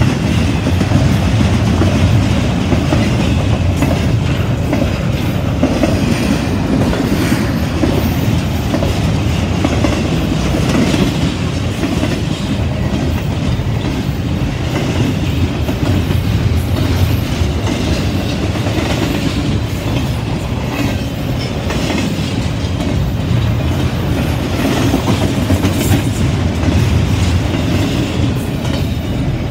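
Double-stack intermodal freight train passing close by: a steady, loud rumble of steel wheels on rail with scattered clicks and knocks from the wheels and cars.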